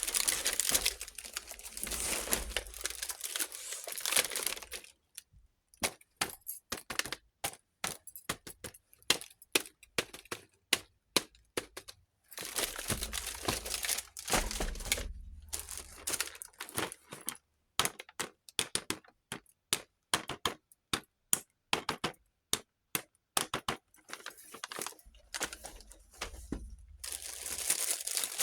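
Plastic packaging crinkling in three spells, with many small sharp clicks and taps of hard plastic toy kitchen pieces being handled between them.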